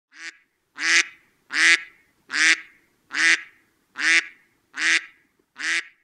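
A duck-like quacking call repeated eight times at an even pace, about one every 0.8 seconds, the first one shorter and quieter.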